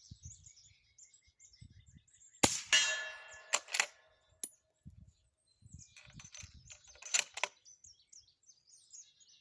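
A suppressed Remington 700 in .308 fires one subsonic round, a short muffled crack about two and a half seconds in, and a quarter second later a steel target rings with a clang for over a second. A few sharp clicks follow.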